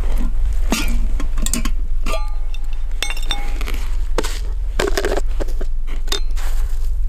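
Camp dishes and a lidded food container being handled: a string of sharp clicks and clinks, a couple of them ringing briefly, over a steady low rumble of wind on the microphone.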